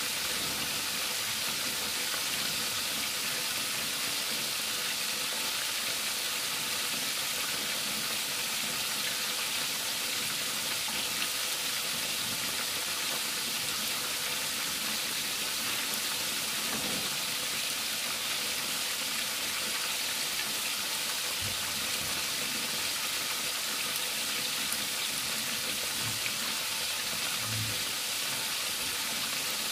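Whole tilapia deep-frying in hot oil: a steady, even sizzle, with a few faint low knocks in the second half.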